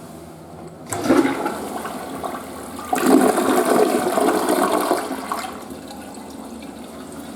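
Western-style flush toilet flushing. Rushing water starts suddenly about a second in, surges louder at around three seconds, then dies away to a quieter steady hiss as the tank refills.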